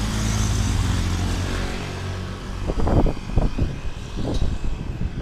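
A motorcycle engine passing close by, its pitch falling slightly as it goes by, fading after about two and a half seconds. After that come irregular low buffeting thumps on the microphone.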